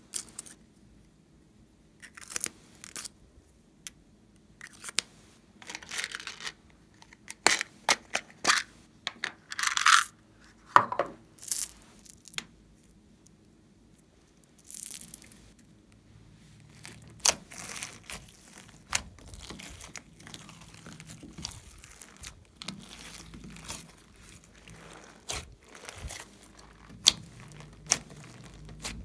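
Slime ASMR handling: sharp plastic clicks and short scraping rasps as plastic pencil-shaped containers and small plastic flower beads are handled over a tray of slime, then a softer, continuous squishing with scattered crackles and clicks as the slime is kneaded and folded, in the second half.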